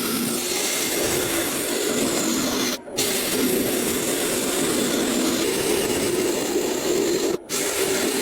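Continuous abrasive rubbing and grinding of a tool working a block of wood, steady in level, cutting out abruptly for a moment twice.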